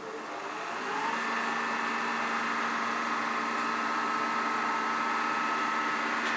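Wood lathe running with a paper towel pressed against a spinning wooden bead to work friction polish in: a steady rubbing hiss over the motor's hum and a thin high whine, building over the first second and then holding.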